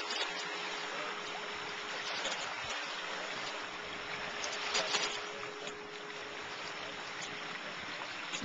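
Small lake waves lapping and washing at the shoreline, a steady watery rush with wind, and a faint steady hum underneath.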